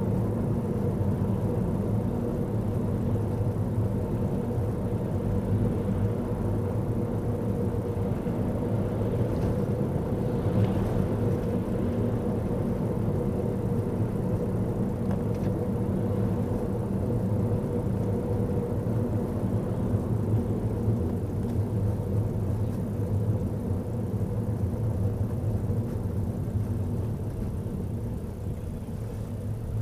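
Car engine and tyre road noise heard from inside the cabin while driving: a steady low drone with a faint hum, easing a little near the end.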